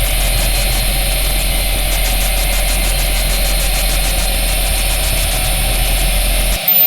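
Loud, steady engine-like mechanical drone with a fast flutter in its hiss. It cuts off suddenly near the end and gives way to a thin, high-pitched whine.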